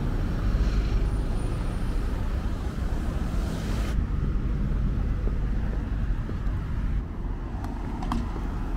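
Street traffic: cars passing on a road, a steady rumble and tyre hiss that is fuller for the first four seconds and then eases off.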